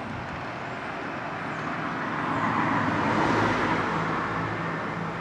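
A road vehicle passing by, its noise swelling to a peak about three seconds in and then fading.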